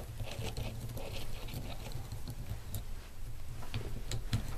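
Faint handling noises, a few light clicks and some rustling, as a removed power steering pump is handled, over a low steady hum.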